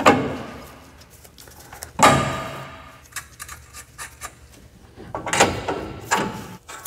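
A few sharp metallic clanks, each ringing briefly, with lighter clicks between them: steel steering linkage parts and hand tools knocking together while tie rod end nuts are threaded on.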